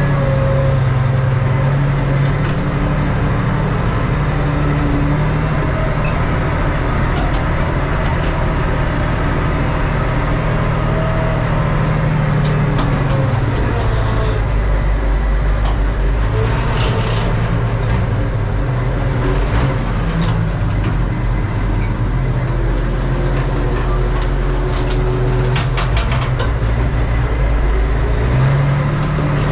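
Valmet 118 tractor's diesel engine with a straight-through exhaust, running steadily under load while pulling a seed drill on a slope. Its pitch drops about halfway through and climbs back near the end, with a few brief clicks.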